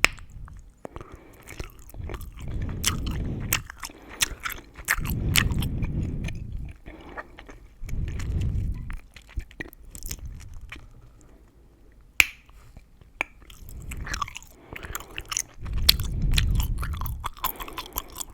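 Gum chewing close to the microphone: wet mouth sounds with many sharp gum crackles and snaps. It comes in bouts with a brief lull, and there is one loud snap about twelve seconds in.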